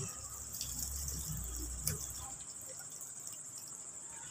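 Boiled chana dal being tipped from a pan into a pot of curry: faint, wet sliding and plopping, with a light knock about two seconds in.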